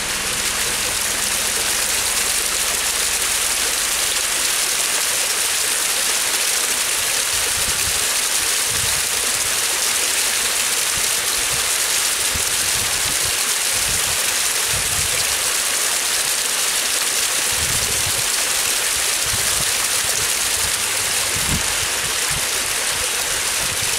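Small mountain stream rushing and splashing over rocks, a steady, close rush of water.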